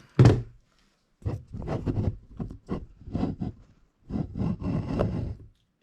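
Plastic toy figures being handled and moved on a surface: a sharp knock just after the start, then a string of short irregular knocks and rustles that stops about half a second before the end.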